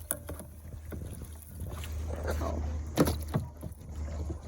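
Kayak paddling on a river: water splashing and sloshing from the paddle strokes, with a few sharp knocks, the loudest about three seconds in, over a low steady rumble.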